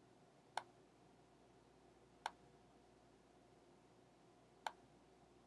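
Three single clicks of a computer's pointing device selecting clips, spaced about two seconds apart, over near-silent room tone.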